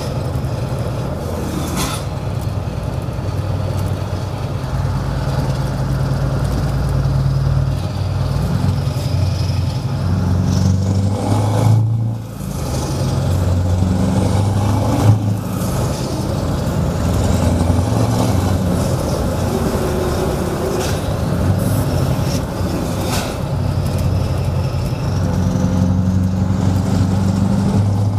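Scania 164L 580 V8 diesel truck engine with an open exhaust, running under load in the cab. Its deep note climbs and drops as the truck pulls through the gears, with a short lift off the throttle about twelve seconds in. A sharp crack about halfway through is the loudest moment.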